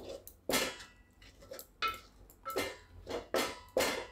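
A metal spoon stirring thick chickpea-flour dough in a metal pot, scraping and knocking against the pot's sides and bottom about five times.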